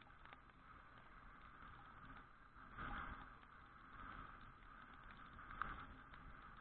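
Faint, muffled riding noise from a Suzuki Address V125G scooter in the rain, heard through an all-weather action camera: a steady low hush of engine, wind and wet road, swelling about three seconds in as an oncoming truck passes, with a single light tap near the end.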